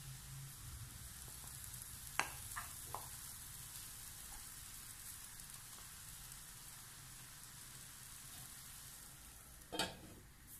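Faint steady sizzle of ash plantain pieces cooking in oil in a pan, with a few light utensil knocks about two to three seconds in. Near the end, a stainless-steel lid knocks once as it is set on the pan.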